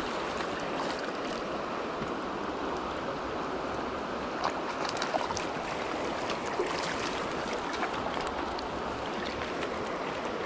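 Shallow stream running steadily over rocks, with a few small splashes as a brown trout is brought into a landing net.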